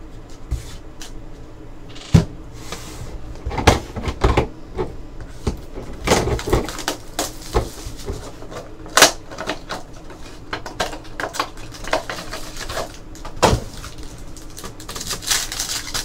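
Trading card boxes and packs handled on a tabletop: scattered taps, knocks and shuffling, with the crinkle of a card pack wrapper being torn open near the end.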